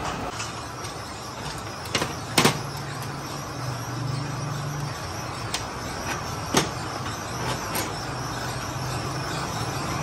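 Workshop sounds: a steady low hum of machinery with about five sharp metallic clicks and knocks scattered through, as wire and metal parts are handled at a coil-winding bench.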